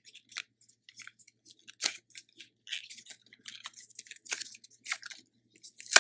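Packaging of a new HDMI cable being unwrapped by hand: irregular crinkling and crackling, with a sharp click near the end.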